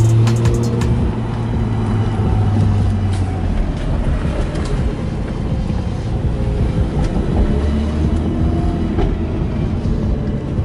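Turbocharged Nissan R32 Skyline engine running at low revs, heard from inside the cabin while the car drives slowly. Its note holds steady for the first few seconds, then drops lower.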